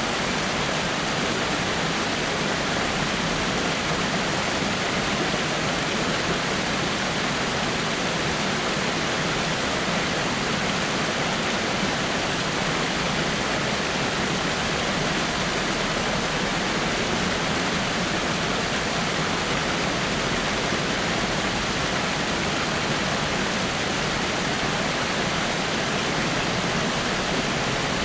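Small waterfall splashing over rocks: a steady, even rush of falling water.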